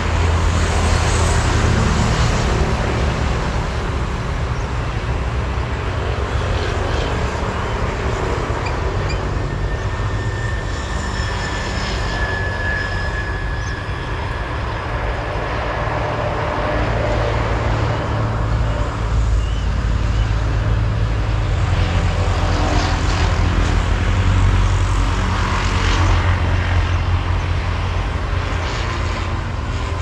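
Steady low rumble with a broad hiss over it, loud all the way through, like outdoor wind or distant engine noise.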